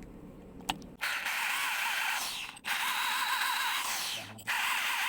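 Electric drill turning a small lathe chuck, triggered in three short runs of about a second and a half, each with a wavering whine that falls away as the motor slows after release.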